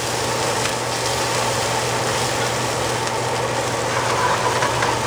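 Minced garlic and shallots sizzling steadily in very hot vegetable oil in a sauté pan while being stirred, with a steady low hum underneath.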